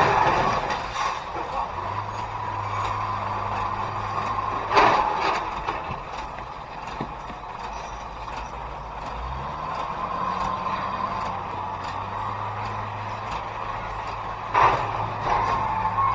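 Traffic noise heard from inside a car stopped at an intersection, over a steady low hum from the car's own idling engine, with two sudden loud sounds about five seconds and fifteen seconds in.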